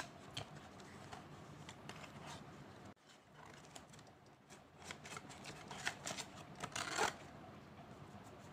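Cardboard watch box and paper manuals being handled and unpacked: a sharp snap at the start, then scattered light rustles and scrapes. The rustling of paper and card grows busier about five to seven seconds in.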